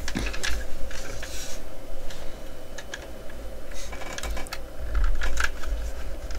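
Irregular light clicks and taps of plastic parts as a 2020 Corvette Stingray scale model kit is handled and turned on a desk mat, a snap-in taillight being worked into its body.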